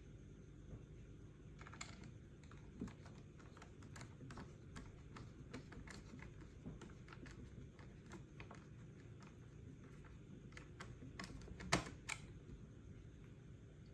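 Screwdriver turning the battery screw in a Dyson V11 vacuum handle: faint, irregular small clicks and ticks of the bit working in the screw, with one louder click near the end.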